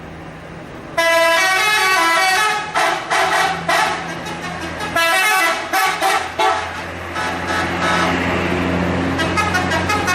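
Telolet horn, the multi-tone musical bus horn, playing a loud melodic run of notes about a second in, then short quick toots in bursts. A steady low engine hum runs beneath.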